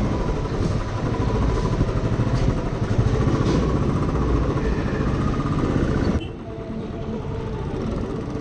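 Motorcycle engine running on the move, with dense road noise. About six seconds in it drops abruptly to a quieter, steadier engine hum.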